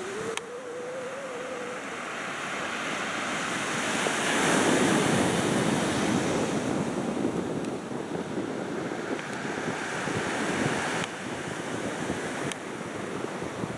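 Sea waves washing onto the shore, with wind buffeting the microphone; the surge is loudest about four to six seconds in. A faint wavering tone stops about two seconds in.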